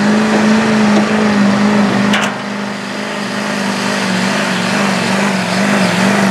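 Duramax diesel engine of a Chevrolet Silverado HD pickup running at steady high revs under full load while dragging a pulling sled, the pitch wavering slightly as it pulls.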